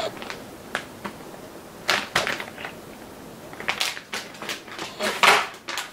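Clear plastic bags of RC buggy kit parts being handled: the bags crinkle and crackle, with light clicks of the plastic parts inside, in a few short clusters, the loudest about five seconds in.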